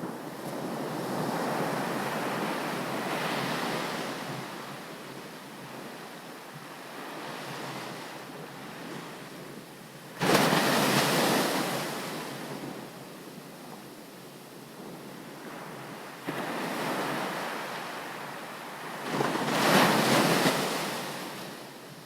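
Ocean surf breaking on a beach: waves swell and wash back in repeated surges, with a sudden loud crash about ten seconds in and the loudest break near the end.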